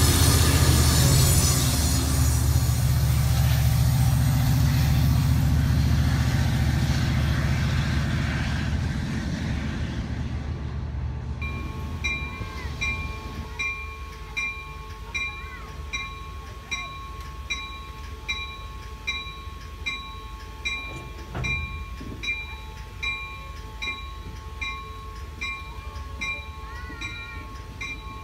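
Amtrak Cascades Talgo train rolling past with a heavy low rumble that fades over the first ten seconds as it slows. The train then stands with a steady engine hum while its locomotive bell rings evenly, a little more than once a second.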